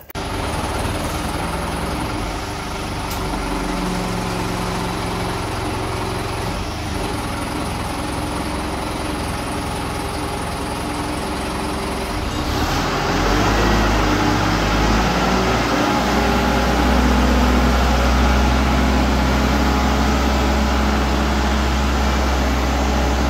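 Engine of a heavy machine running steadily while it carries a truck's rear axle assembly slung on chains. About halfway through it gets louder, with more low rumble, as the machine moves off.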